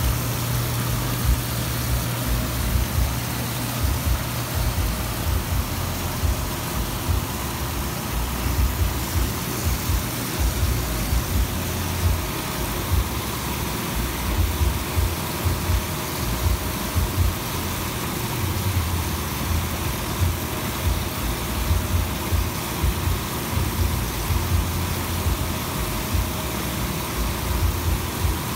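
Jets and waterfall of an Artesian South Seas 748B spa running, water churning and splashing steadily over a low, uneven pump rumble.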